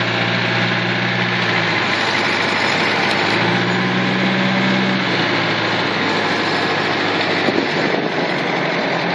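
Engine of an old vehicle running, heard from inside the cab while driving. The engine note drops about two seconds in, picks up again around the middle, then eases off.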